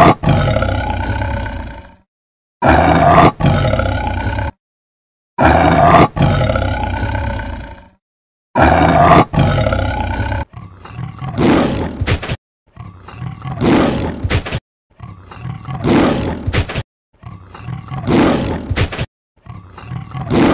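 Tiger roars dubbed in as sound effects: four long roars of about two seconds each, starting and stopping abruptly with dead silence between them, then a run of shorter roars about every two seconds.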